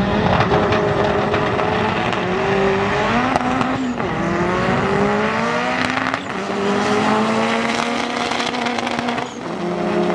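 Drag-racing cars accelerating hard down the strip. The engines rise steadily in pitch, then drop back at each upshift, three times, about 4, 6 and 9 seconds in.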